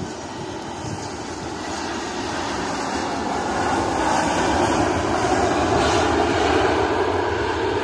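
Jet airliner's engines, a broad rushing noise that grows steadily louder over the first six seconds or so, then begins to ease near the end.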